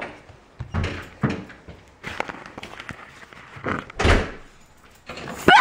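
A door thumps and bangs several times, about five knocks in all. A rising shriek begins just before the end.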